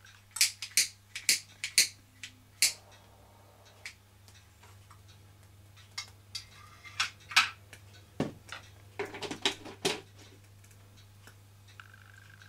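Sharp clicks and taps from small objects being handled at a workbench. They come in two clusters, one near the start and one from about six to ten seconds in.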